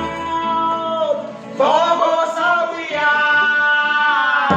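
A group of men singing together in a Vanuatu string band, holding long notes in harmony while the low strumming drops away. The voices swell about a second and a half in and stop together near the end.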